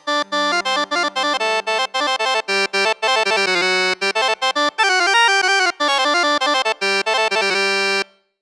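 Roland Fantom 06 synthesizer-keyboard playing a fast melody of short, separated notes over chords and a lower held note. It starts abruptly at the beginning and cuts off about eight seconds in.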